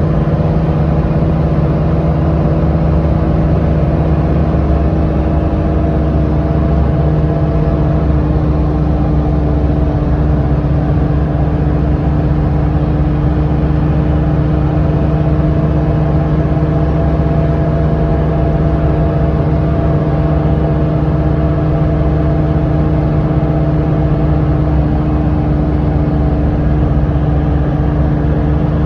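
A road vehicle driving at an even speed, heard from on board: a steady engine hum that barely changes pitch, over continuous road noise.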